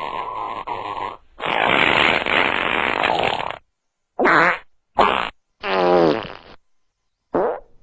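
A series of fart sound effects played one after another with silent gaps between them: a longer one at the start, one of about two seconds, then four shorter ones.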